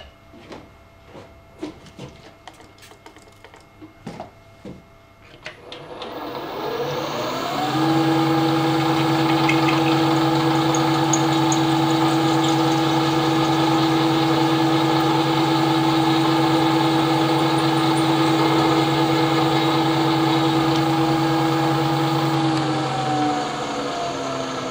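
A few light clicks and knocks of handling, then a milling machine's spindle motor starts up, winds up to a steady hum and runs while a drill is fed into the aluminium oil housing to open a hole to tapping size for a thread insert. Near the end it is switched off and winds down, its pitch falling.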